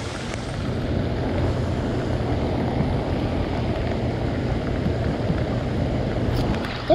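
Heavy rain falling on the lake and boat, with wind buffeting the microphone: a steady hiss over a low rumble.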